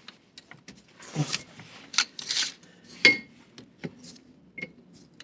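A screwdriver prying a rubber hose off the plastic fitting of a car's EVAP charcoal canister: scattered clicks, scrapes and rubbing, irregular, with a couple of brief squeaks.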